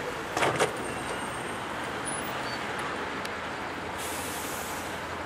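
A skip lorry with a loader crane, its engine running as it moves along the road, over steady traffic noise. There are two brief sharp sounds about half a second in and a hiss near the end.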